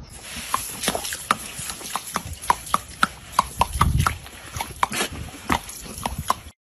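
A dog biting and snapping at a stiff-bristled hand brush: a quick, irregular run of sharp clicks and snaps, several a second.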